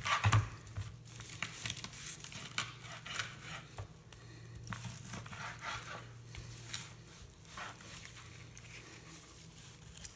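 A long kitchen knife cutting through smoked, sauced pork spare ribs on a bamboo cutting board: irregular slicing and scraping strokes, with the blade now and then tapping the board.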